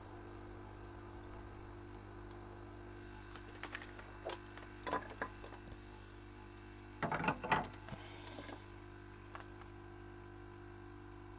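Steady electrical hum of running bench repair equipment, with scattered small clicks and handling noises, in two clusters about three to five seconds in and again around seven to eight seconds.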